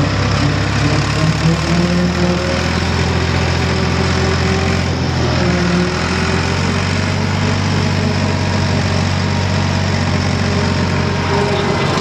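Ford diesel tractor engine running steadily under load, driving a rotary cutter (bush hog) through tall grass.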